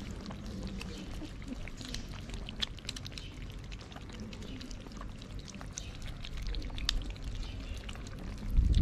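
A crowd of cats eating together from one dish: a wet, steady smacking of chewing and lapping, broken by many short clicks. A low rumble swells just before the end.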